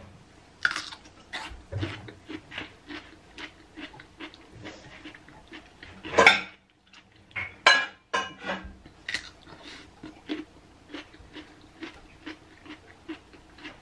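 Close-up eating sounds: a miniature cucumber crunched and chewed, a quick run of small crisp clicks, with wet sounds as it is dipped into sauce in a glass dish. A couple of louder bursts come about six and eight seconds in.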